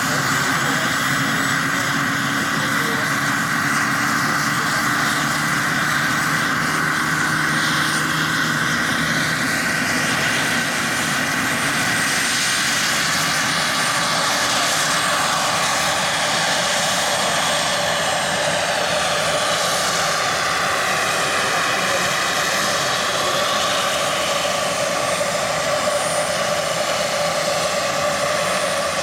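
Giant-scale radio-controlled AgustaWestland AW139 model helicopter running with a steady whine and rotor noise as it lifts off and flies. The pitch of the whine sweeps up and down in arcs as it manoeuvres.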